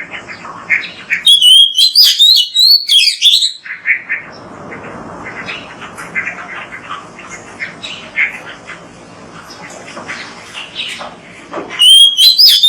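Oriental magpie-robin (kacer) singing: loud, varied whistled phrases about a second in and again near the end, with softer scratchy chattering and twittering between them.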